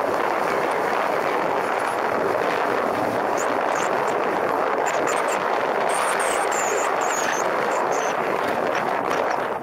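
Steady rush of wind and engine noise from a motorcycle riding at speed, heard from a camera on the bike or rider.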